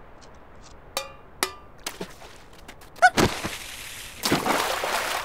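Cartoon sound effects: two light taps, then a sharp thunk just after three seconds in followed by a short hiss, and a loud rushing whoosh through the last second.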